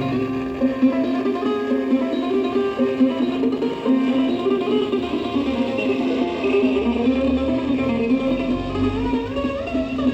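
Music with plucked strings playing through an old Nelco transistor radio's small speaker, its sound cut off above the middle treble.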